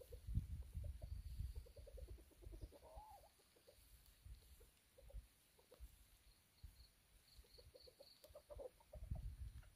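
A junglefowl clucking softly in two runs of quick low clucks, about one and a half seconds in and again near the end. There are low thumps on the microphone at the start and near the end.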